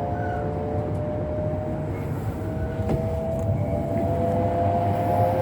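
Shinkansen train running, a low rumble under a steady whine of several tones that drift slowly up in pitch.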